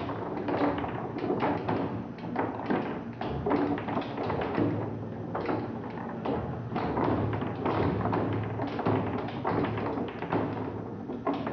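Foosball table in fast play: a rapid, irregular clatter of knocks and taps as the ball is struck by the player figures and the rods are shoved and spun against the table.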